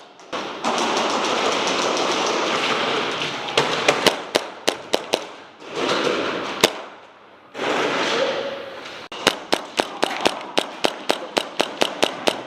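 Airsoft guns firing: sharp cracks, single and in quick strings, quickening to about five a second near the end, between stretches of rushing noise.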